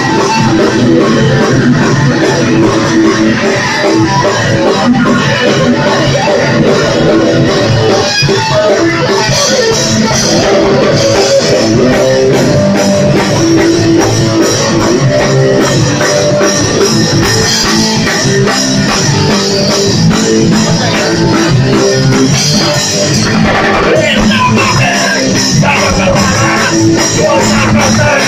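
Live band playing loud heavy rock: electric guitar and bass over a drum kit.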